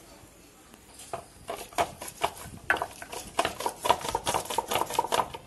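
A hand stone pushed back and forth over a flat grinding stone, stone scraping on stone through a gritty seed paste in quick strokes, several a second, starting about a second in.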